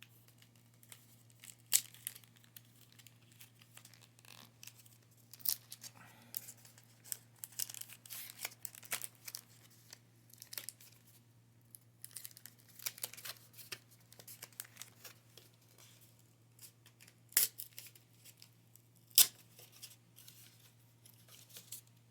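Foil wrapper of a Pokémon trading card booster pack being torn open and crinkled by hand: a long string of small crackles and rips, with a few louder single snaps.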